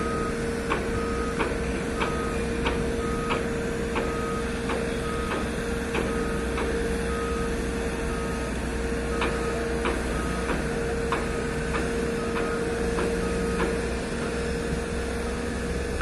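Heavy-equipment warning beeper sounding about twice a second, over the steady hum and rumble of a running diesel engine. The beeping stops near the end.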